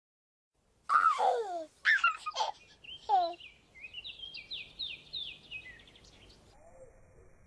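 Rooster crowing in three falling-pitched syllables, followed by a run of small songbird chirps, about four a second, that fade out.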